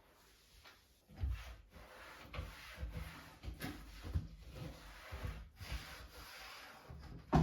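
Irregular rubbing and scraping strokes on a hard surface starting about a second in, with a short knock near the end.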